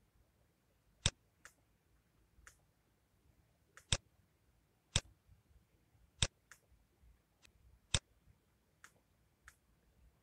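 Computer mouse clicking: single sharp clicks at irregular intervals of about a second, five louder ones among several fainter ticks.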